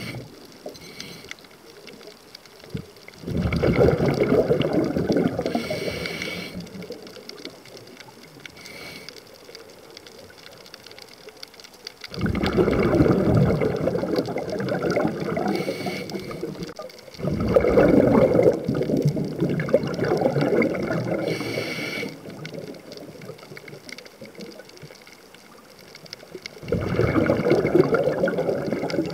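Scuba regulator exhaust bubbles from a diver's exhalations, heard underwater: four long gurgling bursts of several seconds each with quieter gaps between breaths.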